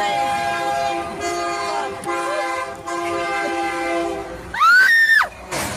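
Freight locomotive's multi-chime air horn sounding a series of long blasts with short breaks, the warning for a grade crossing. Near the end a loud, high cry rises and falls, then a short burst of noise follows.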